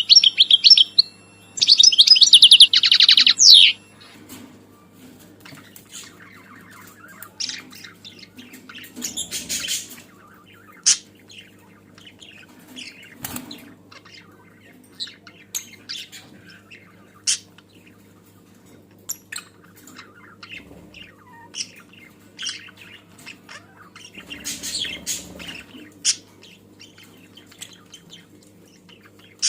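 A pair of green Fischer's lovebirds chirping. Two loud runs of rapid, shrill chattering come in the first few seconds, then scattered softer chirps and clicks follow, over a faint steady hum.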